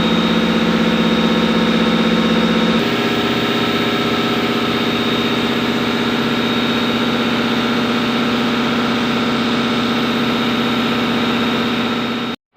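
CNC milling machine running: a steady mechanical hum with a constant high whine. Its lower tones shift about three seconds in, and the sound cuts off suddenly near the end.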